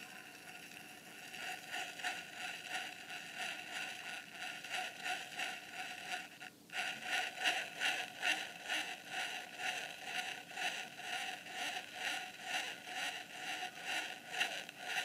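Plastic drinking straw dragging on the spinning rotor of a small 3D-printed pulse motor running off a 1000 µF capacitor: a rhythmic scraping several times a second as the rotor turns against the drag. The drag is loading the rotor to run the capacitor down sooner.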